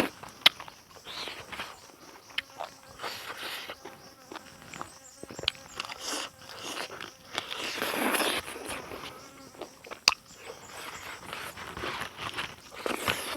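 Close-up eating sounds: chewing and biting, with irregular wet clicks and smacks.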